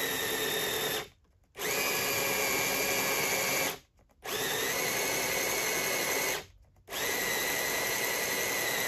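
Cordless drill boring bolt holes down through oak deck boards, its motor whining steadily under load. It runs in stretches of about two seconds and stops briefly three times as the trigger is let off, then picks up again each time.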